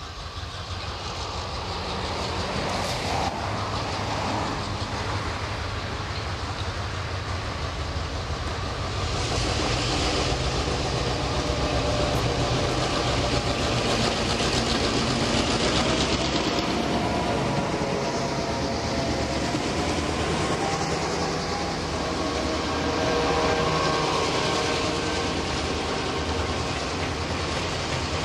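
Streamlined 421 class diesel locomotives hauling a train approach and pass, their engines running under load with the sound growing louder over the first ten seconds or so, then wheels running on the rails as the train goes by.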